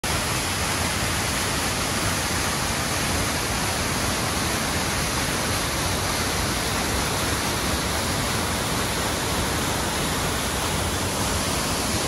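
Waterfall pouring over rocks into a stream: a steady, even rush of falling water.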